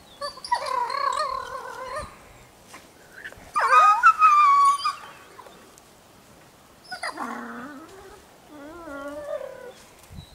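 Grey wolves whining and yelping as the pack crowds over one wolf pinned on the ground. High, pitch-bending whines come in the first five seconds, the loudest about four seconds in, followed by lower, wavering whimpers near the end.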